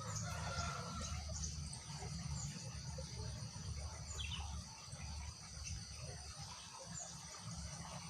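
A steady chorus of trilling insects, with brief high chirps now and then and a low rumble underneath.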